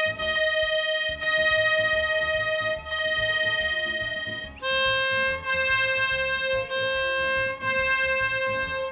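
Accordion reeds in a reed block sounding on a bellows tuning box: one steady reed note with a few brief breaks, stepping down to a lower note about halfway through.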